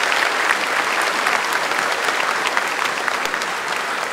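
An audience applauding steadily, a dense patter of many hands clapping, easing slightly near the end.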